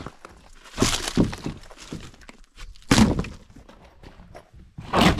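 Wood being knocked and broken out of a wall: three heavy thuds with cracking, about a second in, about three seconds in, and near the end, as rotten wall sheathing is removed.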